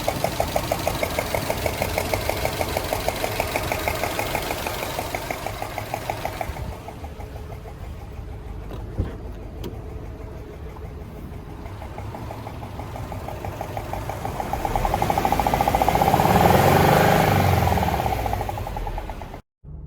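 2007 Subaru Legacy GT's turbocharged EJ255 flat-four engine running with a rapid, even tapping, which the owner hears only once the engine is warm. The engine grows louder for a few seconds about two-thirds of the way through, then settles.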